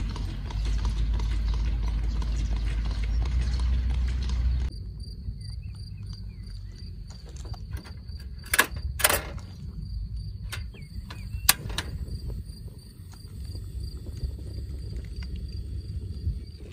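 A loud low rumble with the faint clip-clop of a horse-drawn cart's hooves, cutting off sharply about five seconds in. Then a portable butane stove's piezo igniter clicks sharply three times, twice close together and once a few seconds later, over a steady high pulsing tone.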